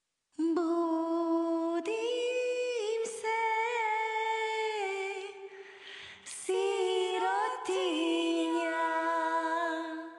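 A woman's voice singing long, held wordless notes unaccompanied, with a slight waver on some notes and a brief breathy break about six seconds in.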